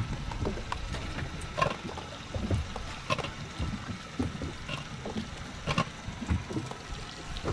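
Sea water slapping and lapping against the hull of a boat drifting at rest, a steady wash broken by short splashes every second or so.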